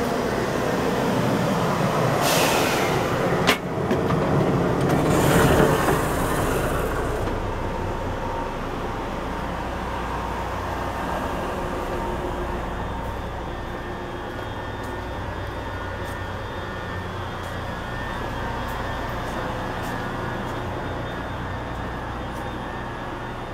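Steady hum inside a standing E653 series train car. A few seconds in, passing the gangway between cars brings louder rushing noise and one sharp click, then only the steady hum remains.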